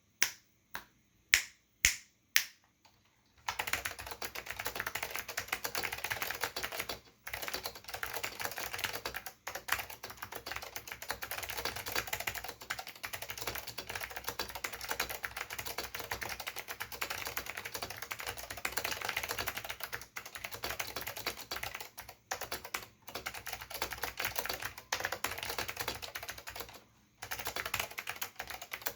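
Acer KB-101AS keyboard with Alps SKCM Blue clicky switches being typed on: a few separate keystrokes, then fast continuous typing from about three and a half seconds in, broken by a few brief pauses.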